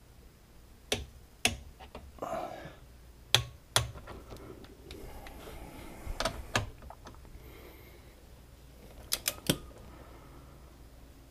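Click-type torque wrench working on battery terminal nuts: sharp metal clicks, in pairs about half a second apart, three times, then three quick clicks near the end, with a short rustle about two seconds in.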